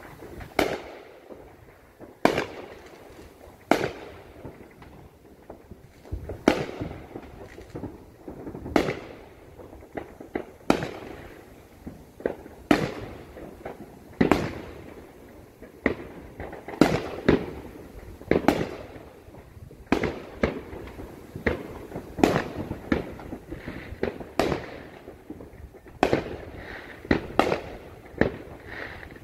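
Aerial fireworks bursting: a run of sharp bangs, roughly one every one to two seconds, each with a trailing echo.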